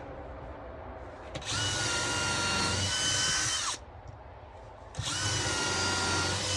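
Power drill running twice, each run about two seconds of steady whine, pre-drilling pilot holes in plywood with a headless finishing nail chucked in as the bit.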